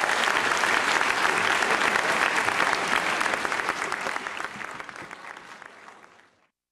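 Audience applauding and clapping in a theatre, fading away over the last few seconds and then cutting off to silence near the end.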